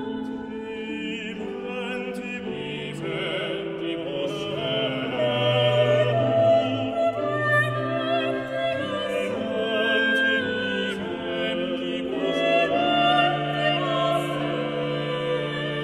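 Slow classical background music with long held, wavering notes.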